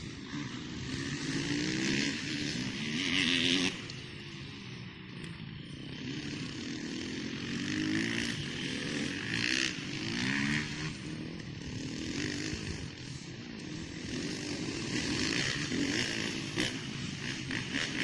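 Motocross bike engine revving up and down as it is ridden off road, its pitch rising and falling repeatedly and loudest about three seconds in.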